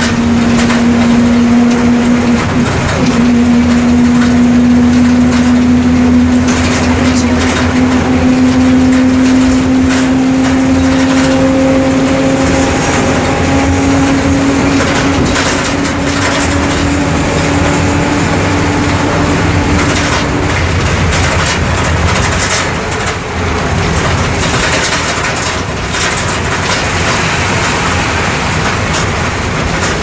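Volksbus 17-230 EOD bus's MWM 6.12 TCE six-cylinder turbo-diesel running under way, with ZF 6AS automated gearbox. A strong whine over the engine note climbs slowly in pitch and stops about twenty seconds in, with rattles throughout.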